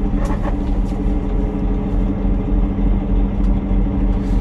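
Peterbilt 389 semi truck's diesel engine running steadily, heard from inside the cab.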